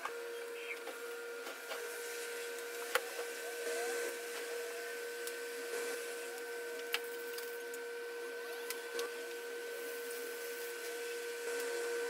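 A small electric motor running with a steady, fixed-pitch hum, with a few light clicks and knocks from things being handled.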